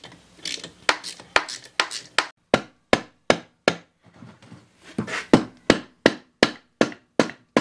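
Repeated sharp knocks, about two or three a second, as a mallet taps the aluminum crankcase cover of a 1958 Briggs & Stratton Model 6B engine to break it loose. The cover is stuck on its gasket.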